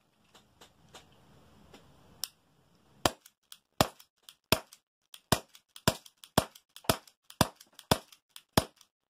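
Tokyo Marui Ruger LCP non-blowback airsoft gas pistol firing about ten shots at a steady pace, one every half to three-quarters of a second, each a sharp pop with fainter clicks between. A few faint handling clicks come before the first shot.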